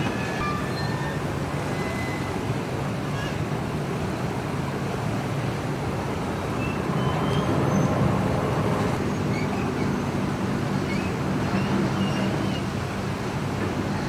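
Steady low engine hum under a continuous haze of outdoor background noise, with a few faint short high chirps.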